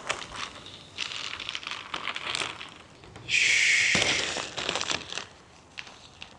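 Rustling and crinkling of a large dragon kite's thin, glossy sail and ribbon tail as it is unfolded and handled, with a louder, longer rustle about halfway through.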